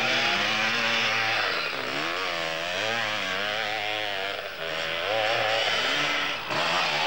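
Two-stroke enduro motorcycle engines revving hard, the engine note rising and falling again and again as the riders work through the terrain.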